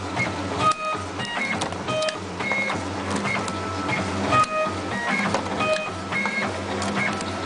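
Computerized wire cutting and stripping machine running through its cycle about once a second. Its feed motors whine in short steady tones as the rollers push the wire through, a low hum starts and stops, and the blades click as they cut and strip.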